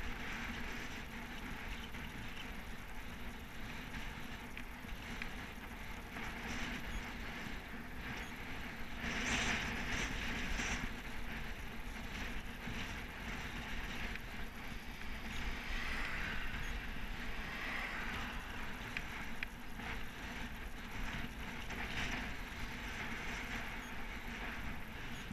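Wind buffeting on a helmet-mounted camera's microphone and tyre noise from a road bike rolling on tarmac. It is a steady rushing hiss over a low rumble that swells briefly about nine seconds in.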